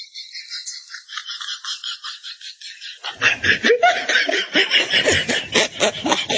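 A fast, high-pitched rattling clicks for about three seconds, then laughter with pitch sliding up and down breaks in, louder, and keeps going.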